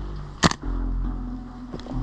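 A single sharp shot from an airsoft rifle about half a second in, with a fainter click near the end, over background music with steady low bass notes.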